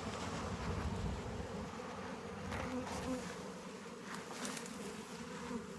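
Honeybees buzzing around an open hive: a steady, slightly wavering hum, with a few faint clicks.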